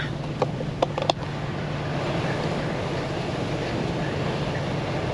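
Steady low drone of a river ferry under way, with wind noise. A few sharp clicks come in the first second.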